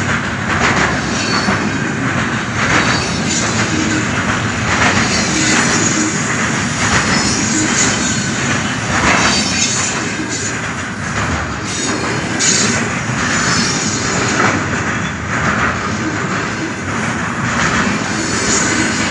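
Loaded container flat wagons of a long freight train rolling past close by: a steady, loud rolling noise of steel wheels on rails, broken by repeated clacks from the passing wheelsets.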